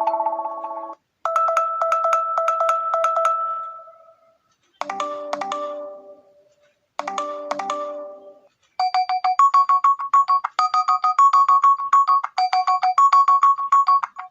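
Nokia 1.3 smartphone alarm tones previewed one after another: the end of one tone, a held chime that fades out, two short melodic chime phrases with pauses between them, then about nine seconds in a fast repeating pattern of short beeping notes.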